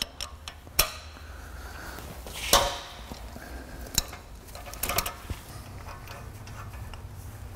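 Breaker bar and 7/8-inch socket working an oxygen sensor loose from the top of the catalytic converter: a few sharp metallic clicks and knocks, the loudest about two and a half seconds in with a brief ring, over a steady low hum.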